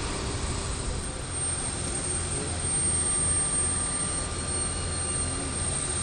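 J-AIR Embraer regional jet running on the apron while hooked to a pushback tug: a steady rumble under a thin, high, constant whine.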